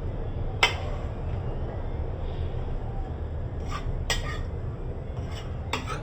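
A metal utensil clinking sharply against cookware about five times over a low steady rumble.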